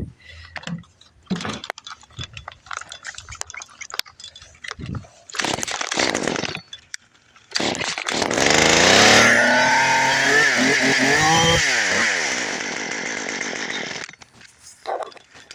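Chainsaw engine revving: after a few seconds of scattered knocks and handling sounds, the saw runs loud about halfway through, its pitch rising and then dropping a couple of times, and cuts off near the end.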